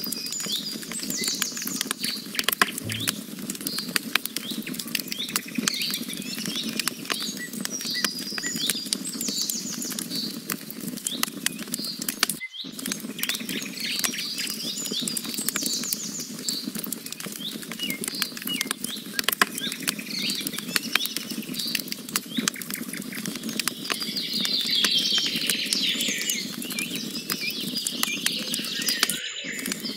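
Wood campfire crackling and popping steadily over a low rush of burning logs. Small birds chirp in the background throughout, with a busier burst of chirping near the end. The sound cuts out for an instant twice.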